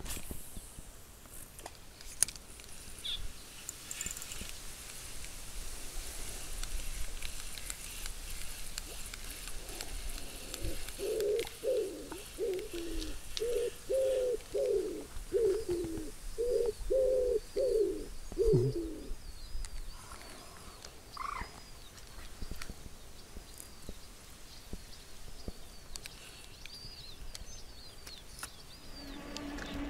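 A dove cooing: a run of about ten low coos over several seconds in the middle. Faint high chirping of a small songbird follows.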